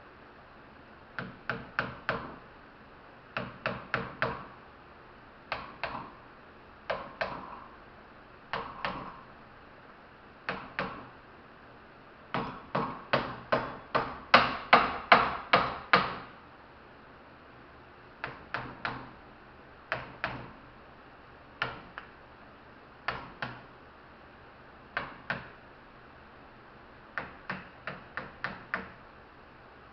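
Hammer tapping in short clusters of two to four strikes, with a faster, louder run of about a dozen strikes midway, knocking a part down out of a scrapped compressor a little with each tap.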